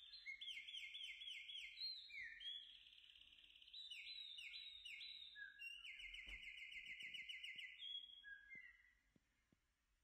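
Faint bird song: quick trills of repeated sliding chirps that change pattern every second or so and stop about eight and a half seconds in.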